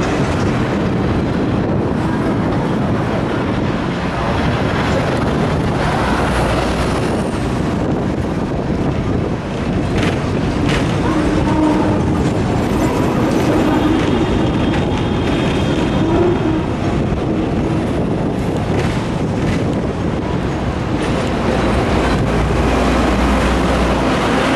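Hong Kong double-decker electric tram running along street track, heard on board: a steady rumble of wheels on the rails, with a couple of sharp clacks about ten seconds in.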